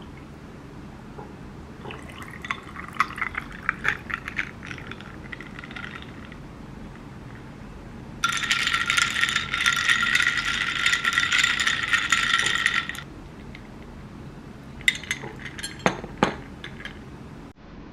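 Milk poured over ice in a ribbed glass tumbler, ice cubes clinking against the glass, with a louder steady stretch of liquid and ice sound in the middle. A few sharp clinks near the end as a straw goes into the glass.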